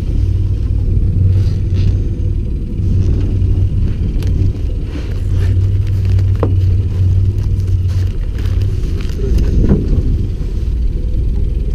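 A steady low rumble under a few rustles and sharp clicks of fishing gear and a bag being handled in a small boat.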